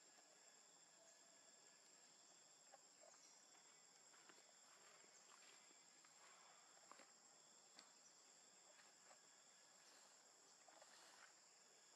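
Near silence: a faint, steady high-pitched insect drone, with a few faint scattered ticks and rustles.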